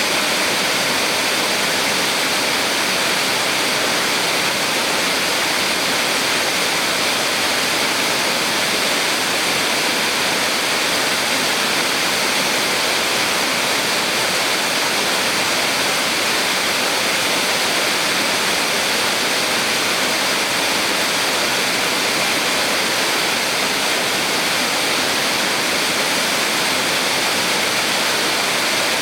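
Small waterfall on a mountain stream, water falling and rushing steadily in an even hiss.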